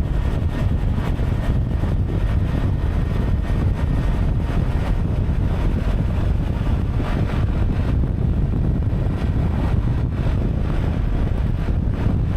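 Steady low rumble of wind buffeting the microphone, mixed with road and engine noise, while riding a Honda PCX125 scooter.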